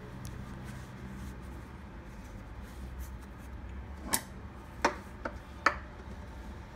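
Thin, dry lavash sheets rubbed and folded by hand on a countertop, a faint papery rubbing. About four to six seconds in come three sharp clicks as the metal kitchen shears are set down on the stone countertop to hold a folded edge.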